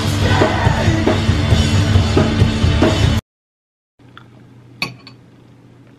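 Loud rock music with drums, cut off abruptly about three seconds in; after a moment of silence, a quiet room hum with one short click.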